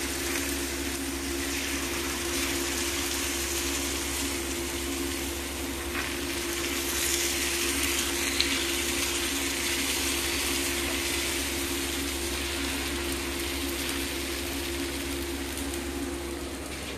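Jaggery-and-wheat batter frying in hot oil on an iron tawa: a steady sizzling hiss, over a steady low electrical hum, with a faint click about eight seconds in.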